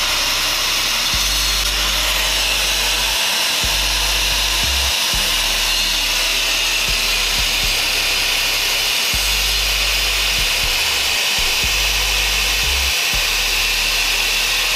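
Handheld angle grinder running steadily, its disc grinding down a metal bracket to modify it.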